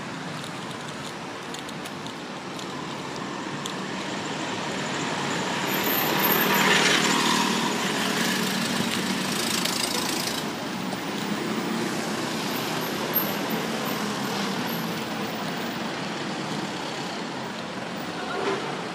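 Street traffic: a steady noise of passing vehicles, with one vehicle passing close, growing louder to a peak about seven seconds in and then fading.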